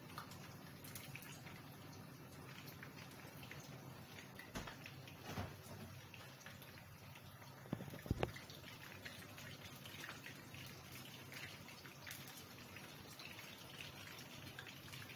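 Anchovy omelette frying in hot oil in a pan, with faint sizzling and crackling. A few soft knocks sound in the middle, the loudest about eight seconds in.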